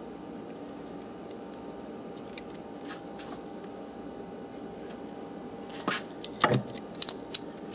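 Small metal hand tools clicking and clinking as a screwdriver bit is handled and fitted, over a steady background hum. A few faint clicks come midway, and a handful of sharp clicks with one knock near the end.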